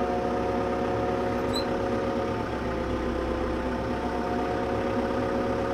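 TYM T574 tractor's diesel engine running steadily at a constant speed.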